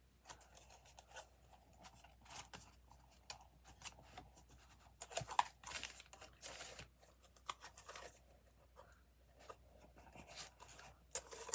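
Heavy textured paper rustling and scraping as its ends are rolled up around a skewer, in short irregular crinkles and scratches, loudest about five seconds in.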